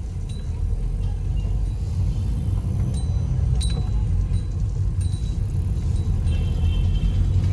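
Toyota car on a test drive after an engine mounting change, heard from inside: a steady low engine and road rumble that grows a little louder, with a few light clicks.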